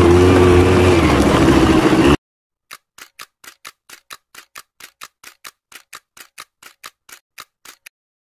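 ATV engine running at high, steady revs, cut off abruptly about 2 s in. Then a rapid run of short clicks, about four a second: a typing-style sound effect as title letters pop up.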